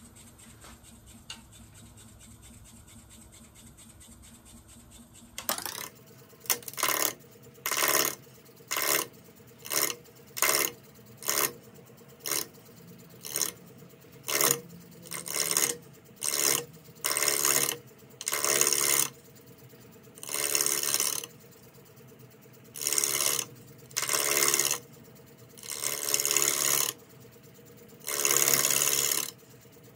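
Wood lathe spinning a square walnut-and-cherry bowl blank at about 550 RPM, with a swept-back bowl gouge cutting it in repeated short strokes. The lathe hums alone at first; the cuts begin about five seconds in, roughly one a second, and grow longer toward the end.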